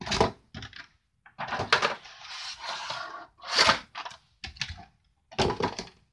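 Toy-car packaging being handled: a cardboard box and clear plastic blister trays crackling, rustling and clacking as they are moved and set down on a table. Short sharp bursts, with a longer rustle about one and a half to three seconds in.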